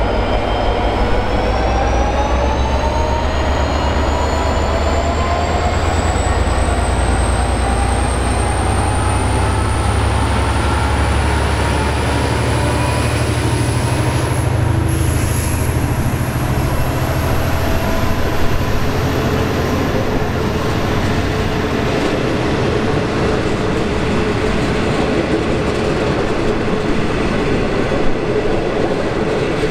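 V/Line N class diesel-electric locomotive passing close by at the head of a passenger train. It gives a heavy low engine rumble, with a high whine and other engine tones rising slowly in pitch. The rumble ends about twenty seconds in, and the passenger carriages roll past with steady wheel-on-rail noise.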